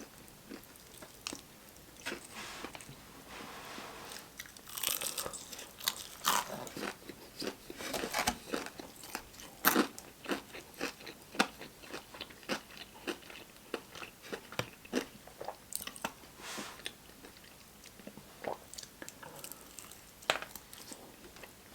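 Close-miked crunching and chewing of Popeyes fried chicken: irregular crisp crackles of the crunchy breading with each bite and chew.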